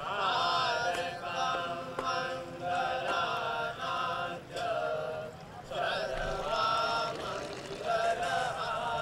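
Voices chanting in sustained pitched phrases, each held for about a second with short breaks between.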